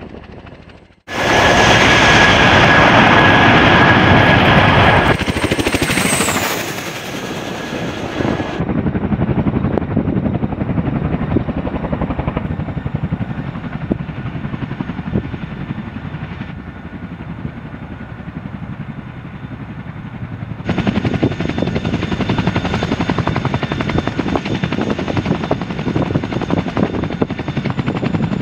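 CH-47 Chinook tandem-rotor helicopter flying, its rotor blades chopping fast and steadily, with a steady high whine in the first several seconds. The sound changes abruptly several times as the footage cuts between shots; it is loudest a couple of seconds in.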